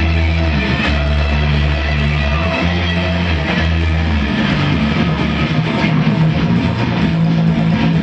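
Live rock band playing: electric guitar, bass guitar and drums. Held low bass notes run through the first half and drop away about four seconds in.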